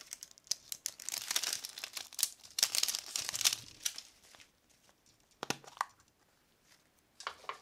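Printed plastic wrapper being peeled and torn off a plastic surprise egg: a run of crinkling and tearing. This is followed by a few sharp clicks as the bare plastic egg's two halves are pulled apart.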